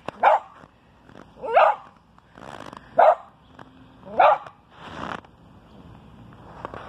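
Dog barking four times, sharp single barks about a second and a half apart, with fainter noises in between.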